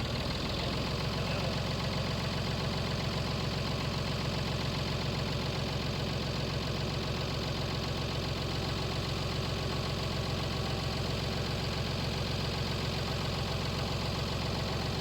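Tractor engine running steadily with a fine, even pulse.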